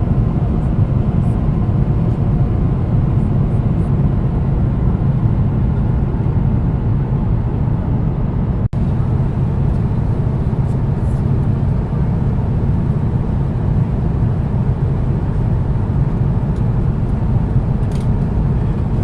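Steady cabin noise of a Boeing 777-200ER in flight: engine and airflow noise heard from inside the cabin, low and even. It drops out for an instant about nine seconds in.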